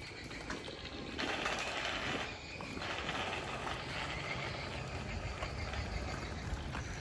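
Bicycles riding over a gritty road: tyre noise with light rattling and ticking from the bikes, and a low rumble that builds in the second half.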